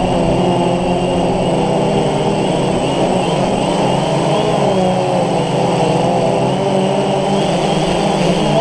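DJI Phantom FC40 quadcopter's four electric motors and 9450 propellers whining steadily in flight, heard up close from the onboard camera. Several pitches waver slowly up and down as the motors speed up and slow down to hold the craft.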